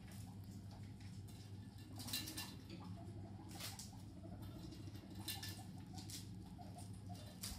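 Guinea pig eating from a torn plastic snack packet: short crinkly rustles of nibbling and packaging every second or so, over a steady low hum.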